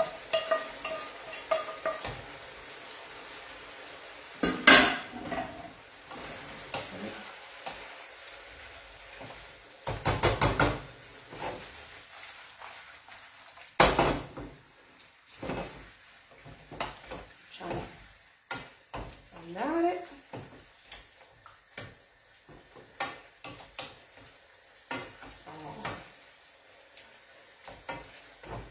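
Wooden spoon stirring and scraping pasta and vegetables in a stone-effect nonstick frying pan, with irregular clicks and a few louder knocks against the pans, the loudest about five, ten and fourteen seconds in, over a faint sizzle.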